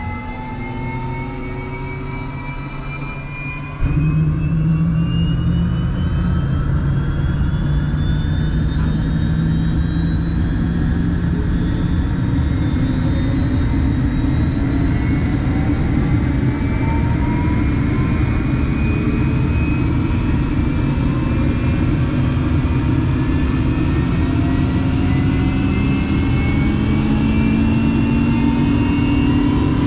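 Helicopter turbine engine starting up and spooling up, its whine rising steadily in pitch over a heavy rumble. The sound steps up in loudness about four seconds in.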